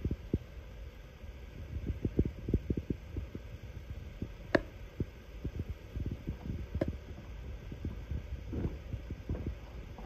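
Low, irregular thuds of footsteps on a wooden floor and bumps from a handheld phone camera being carried, with two sharper clicks a couple of seconds apart near the middle.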